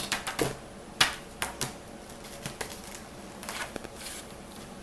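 Paper pages of a picture book being handled and turned: a scatter of sharp clicks and rustles, the loudest about a second in.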